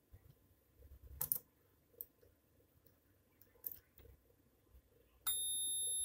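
A few faint clicks, then about five seconds in a digital multimeter's continuity buzzer starts a steady high-pitched beep. The beep means the resistance between the old washing-machine heating element's winding and its metal sheath has dropped low, a sign of insulation leakage to the case.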